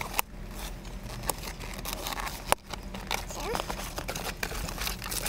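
Plastic blister packaging of a backseat baby mirror being handled and worked open: crinkling with many short, sharp clicks, and one louder snap about two and a half seconds in.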